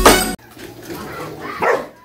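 A song cuts off abruptly at the start. Then come dogs, with one short bark about a second and a half in.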